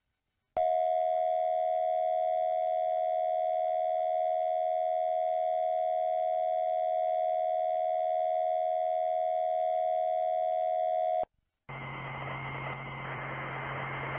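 Emergency Alert System attention signal: a steady two-tone alarm, pitched lower than the standard tone, starting about half a second in and cutting off abruptly after about ten seconds. A low hum with hiss follows.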